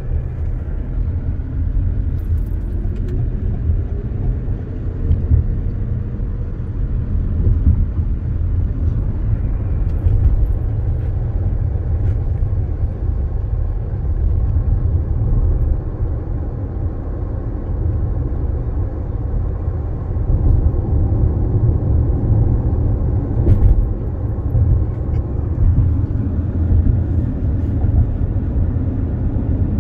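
Car driving along, its road and engine noise a steady low rumble that grows a little fuller about two-thirds of the way through.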